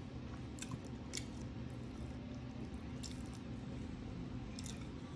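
Wet, squishy eating sounds: a few soft smacks and clicks from chewing and from gloved fingers pulling apart sticky adobo pork belly and rice. They sit over a steady low background hum.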